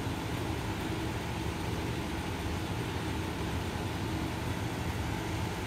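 Steady low machine hum with an even hiss underneath: the room's constant mechanical background noise.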